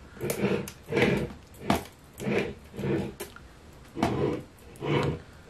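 Rummaging through makeup brushes and tools: a run of short clattering knocks and rustles, about one every second or less.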